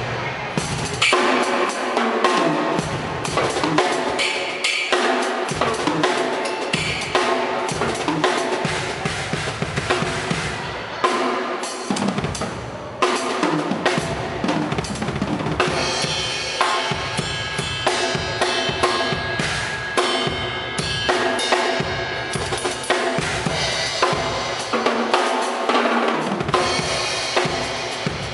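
Drum kit played continuously during a sound check, with repeated bass drum and snare strikes and ringing high-end wash in the middle stretch.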